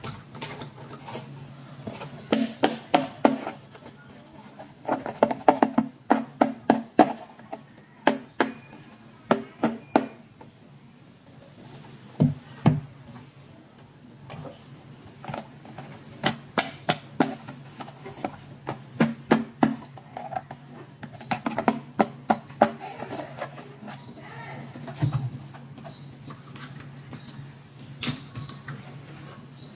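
Small plastic toy pieces and cases being handled, giving runs of quick clicks and taps in clusters over a low steady hum. A few short high chirps come near the end.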